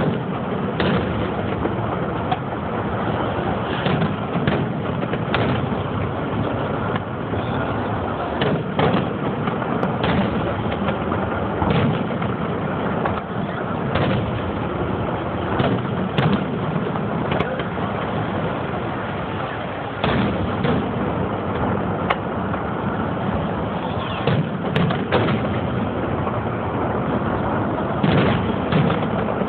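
Aerial firework shells bursting at a distance: an irregular string of bangs, one every second or two, over a steady background rumble.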